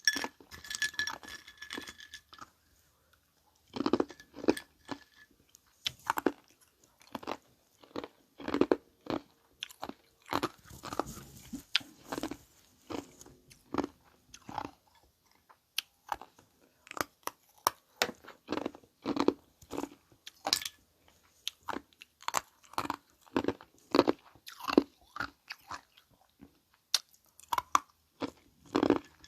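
Someone biting and chewing ice close to the microphone, in loud, irregular crunches about one or two a second, with a brief pause a few seconds in.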